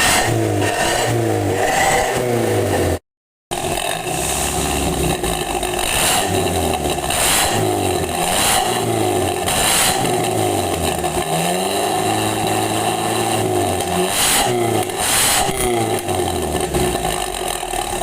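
Toyota Kijang Grand engine revved again and again through a freshly fitted Suos 'ngorok' racing muffler, the revs rising and falling every second or two. It cuts to silence for a moment about three seconds in.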